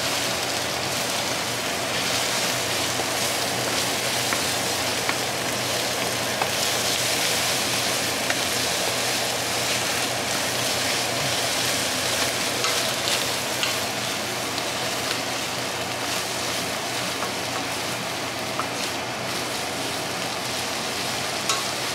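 Scrambled eggs sizzling in a hot skillet as they are stirred with a wooden spatula: a steady sizzle with faint scattered crackles.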